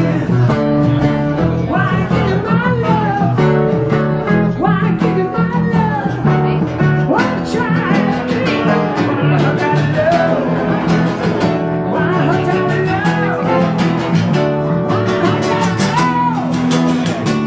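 Live acoustic guitars playing a blues-rock passage, steady rhythmic strumming under a lead line whose notes bend up and down.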